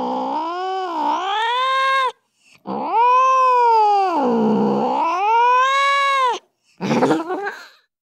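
Domestic cat yowling: a long drawn-out yowl that dips and rises in pitch and breaks off about two seconds in, then a second, longer yowl that sags low in the middle and climbs again, then a short, rougher cry near the end.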